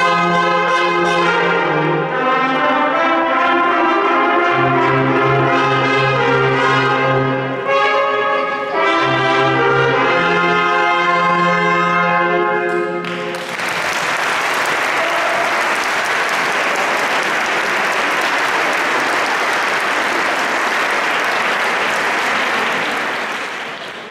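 A brass ensemble playing held chords in stepwise changes, ending about thirteen seconds in, followed by an audience applauding for about ten seconds.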